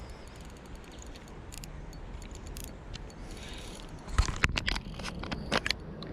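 Fishing tackle being handled during a fight with a hooked fish: a few faint ticks, then a quick irregular run of sharp clicks and knocks about four seconds in, over low background noise.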